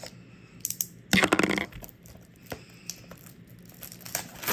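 Clicks and taps of a shrink-wrapped plastic DVD case being handled, with a short, louder burst of handling noise about a second in.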